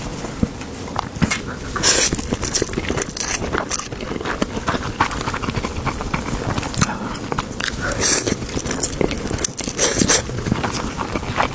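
Close-miked eating: a steady run of bites, crunches and crinkling clicks, with a few louder sharp crunches about two seconds in, near eight seconds and around ten seconds.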